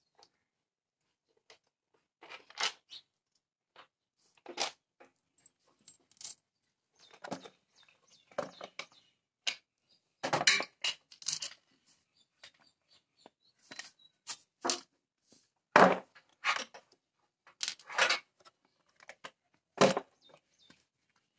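Ford Figo's hard plastic air filter housing being taken apart and handled on concrete: an irregular series of knocks, clacks and rattles, several of them loud.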